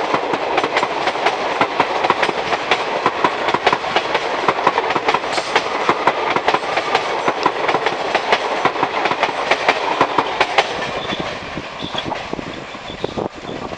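Passenger coaches passing at speed, their wheels clattering rapidly over the rail joints with a steady rumble. The clatter grows quieter over the last few seconds.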